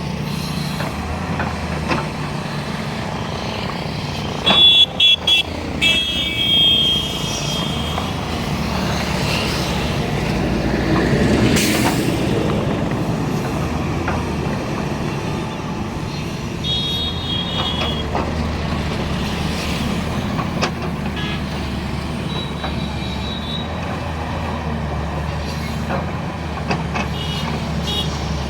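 JCB 205 excavator's diesel engine running steadily under load. About five seconds in come several short, loud, high-pitched toots, and another follows a little later.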